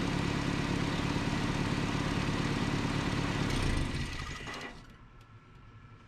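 A 1988 Nissan D21 truck's 2.4-litre Z24 four-cylinder engine idling steadily, then shut off about four seconds in and running down to a stop.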